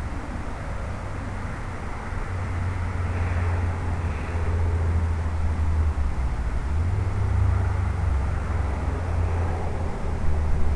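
Air rushing past the onboard microphone of a flying radio-controlled model airplane: a steady, heavy low rumble with a hiss over it, growing somewhat louder after about two seconds.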